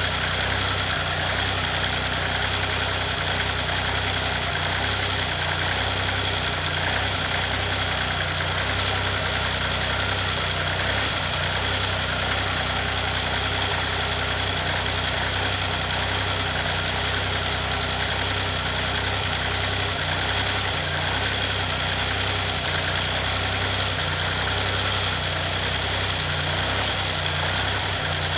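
Maserati engine idling steadily after a timing belt replacement, under a constant high hiss and a faint steady whine.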